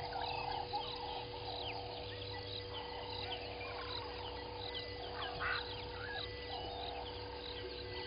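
Bird chorus in the bush: many birds chirping and whistling at once, over a lower rasping call repeated about once a second and a faint steady hum.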